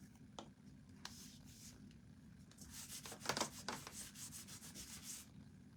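Quick rubbing strokes on a small painted wooden piece, a fast run of short scratchy passes, loudest about a third of the way in. A faint click or two comes before it.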